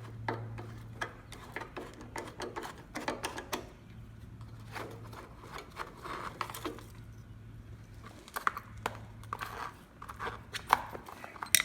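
Scattered clicks, taps and rustling as the air filter cover of a Murray push mower's Briggs & Stratton engine is opened and its foam air filter handled, over a faint steady low hum.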